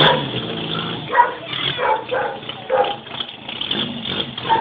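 A dog barking repeatedly, short barks about two a second, over the low running of a Yugo's small engine.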